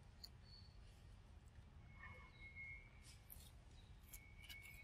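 Near silence: faint forest ambience with a few thin, high bird chirps and some faint clicks.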